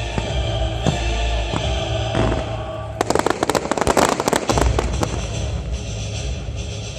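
Fireworks crackling in a dense, rapid flurry of pops lasting about a second and a half midway, with a few single bangs before and after, over music.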